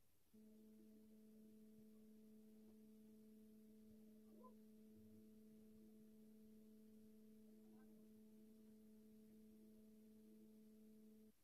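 Near silence with a faint, steady low hum: a single tone with its overtones that switches on about half a second in and cuts off abruptly near the end.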